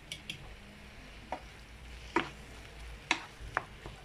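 Wooden spoon stirring minced meat and grated onion in a nonstick frying pan, with a handful of light knocks and scrapes of the spoon against the pan over a faint sizzle of frying.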